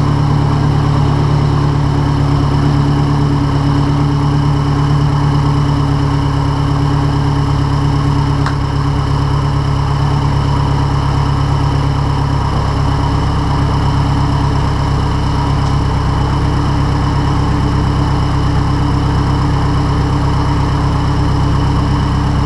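Mazdaspeed 3's freshly rebuilt turbocharged 2.3-litre four-cylinder engine idling steadily on its first run after assembly. Its note dips slightly about halfway through.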